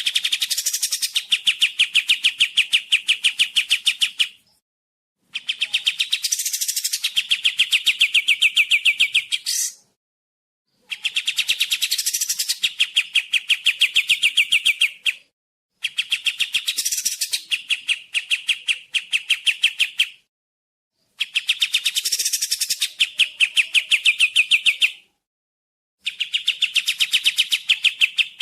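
Kapas tembak bulbul song: a rapid, evenly pulsed trill with high sweeping notes, in bursts of about four seconds separated by a second of silence, six times over.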